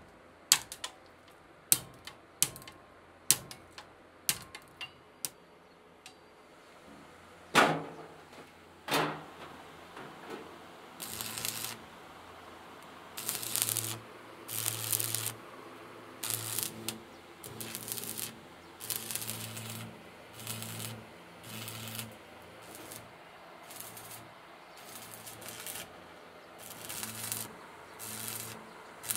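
Sharp metallic clicks about once a second, then two louder knocks. After that comes electric arc welding in repeated short bursts of crackling hiss over a low hum, each lasting about a second.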